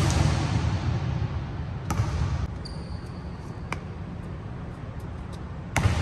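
Basketball bouncing on the hardwood court of a large, empty arena: a few loud bangs, each followed by a long echo, the strongest at the start and near the end, with fainter ticks between.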